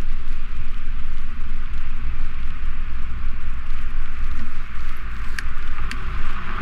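Wind rumbling on a GoPro's microphone while riding a bicycle, over a steady hiss of tyres and street noise; two sharp clicks come about half a second apart near the end.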